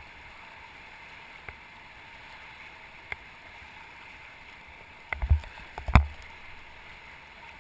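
Steady rush of river water around an inflatable raft while the crew paddles forward, with a few light clicks and then a cluster of thumps about five to six seconds in.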